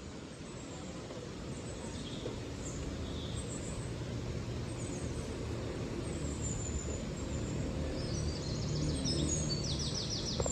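Outdoor ambience: a steady low rumble with a bird chirping. Near the end the bird gives quick runs of repeated high notes.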